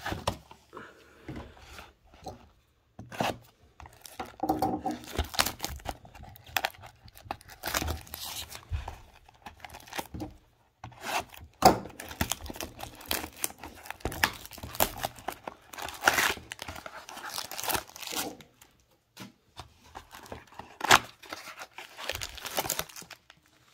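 Cardboard trading-card boxes and their plastic shrink-wrap being torn open by hand: irregular ripping and crinkling, with short pauses between.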